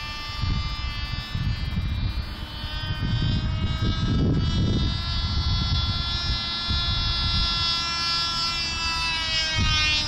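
Cox Tee Dee .020 glow engine of a small radio-controlled biplane running flat out in flight, a steady high-pitched buzz whose pitch sags slightly near the end, with a low rumble of wind on the microphone.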